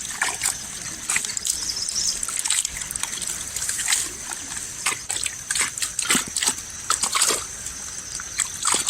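Water splashing and dribbling as a lift net is hauled up out of a river, with irregular splashes and drips throughout and a steady high hiss behind them.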